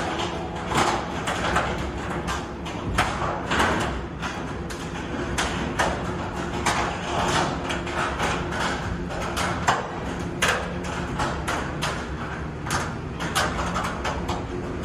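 Diesel engine of a Caterpillar 312-based amphibious excavator running steadily, with frequent irregular metallic clanks and knocks, several a second, from the machine.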